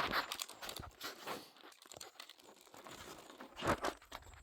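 Phone handled close to its own microphone: irregular rustling, scraping and small knocks, with a slightly louder scrape near the end.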